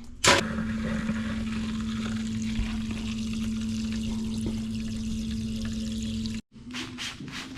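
A parts-cleaning machine for the bicycle chain switches on with a thump and runs with a steady hum over the rush of liquid for about six seconds, then cuts off abruptly.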